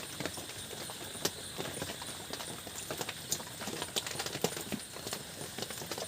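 Eating sounds: scattered soft clicks and taps at an irregular pace as paratha and aloo dum are tasted.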